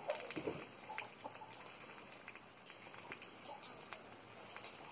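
Ducklings pecking at a watermelon rind: soft, scattered wet clicks of their bills on the rind, with a faint bird call now and then.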